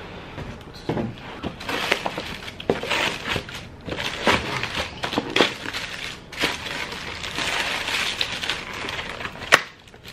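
Paper wrappers rustling and crinkling as takeout food in paper-lined cardboard trays and foam clamshell containers is unpacked and moved about, with scattered small knocks. Near the end there is one sharp snap as a foam clamshell lid is pulled open.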